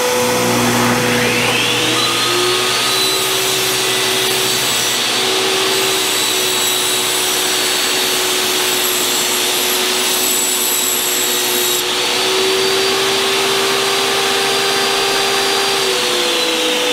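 Jobsite table saw motor whining up to speed about a second in, running while a glued-up panel of 3/16-inch luan plywood is ripped to square, then winding down near the end. A steady vacuum drone runs underneath throughout.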